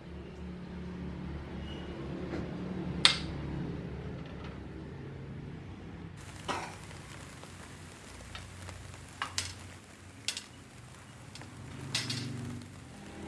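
Household clatter of dishes and utensils: a handful of sharp clinks and knocks spaced a second or more apart, over a low steady hum.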